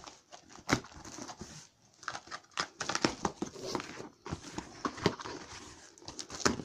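Snap-off utility knife slicing through packing tape on a cardboard box, with irregular scraping, tearing and rustling of tape and cardboard; a sharp scrape comes about three-quarters of a second in and a quick cluster near the end.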